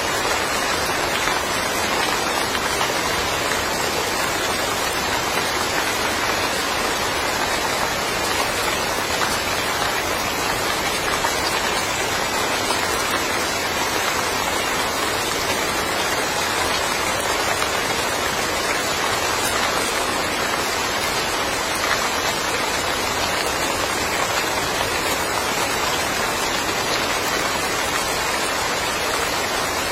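Steady, even rain falling.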